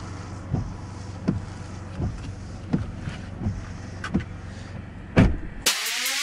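Windshield wipers sweeping across a wet windshield, with a soft knock about every 0.7 s as the blades reverse, over a steady low vehicle hum. Electronic music with rising sweeps comes in near the end.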